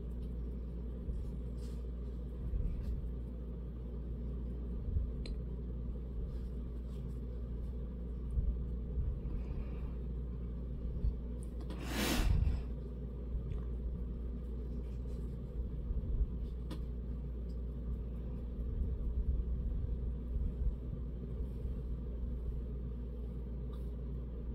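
Steady low background rumble, with faint scattered ticks and one short rush of noise about halfway through.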